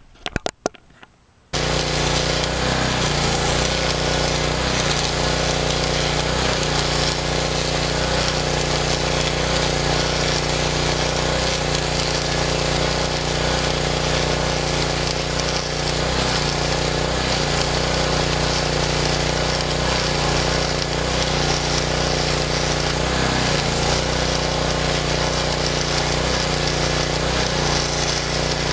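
Stick (arc) welding with a Hobart Stickmate AC/DC welder: the arc gives a steady, loud crackle with a constant low hum underneath. It strikes up about a second and a half in, after a few brief clicks.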